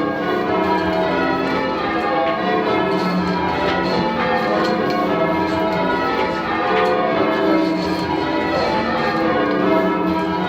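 A ring of ten church bells, the tenor 18½ cwt in E, being rung in call changes. The bells strike one after another in a continuous, even round, their overlapping tones ringing on without a break.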